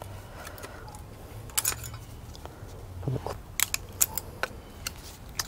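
Flat screwdriver prying the pad clips off a rear brake caliper bracket: scattered sharp clicks and scrapes of metal on metal. The loudest clicks come between about one and a half and four and a half seconds in.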